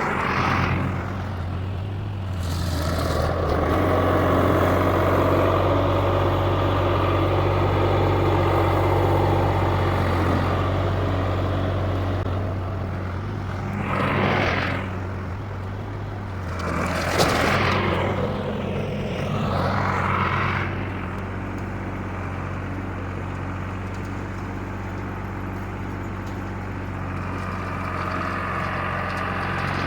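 Tractor engine running steadily under work, with a few louder swells of noise partway through.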